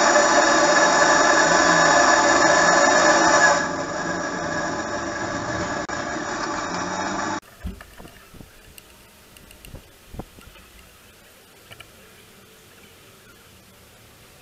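Gas torch flame running steadily while it heats a bronze pipe fitting. It drops in level about three and a half seconds in and cuts off suddenly about halfway through. After that there are only faint rubbing and a few light knocks as the fitting is wiped on a cloth.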